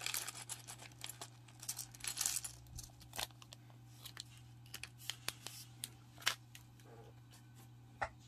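Small plastic Mega Construx building pieces poured out of a thin plastic bag onto a cutting mat: bag crinkling and pieces clattering for the first couple of seconds, then a few single clicks, over a low steady hum.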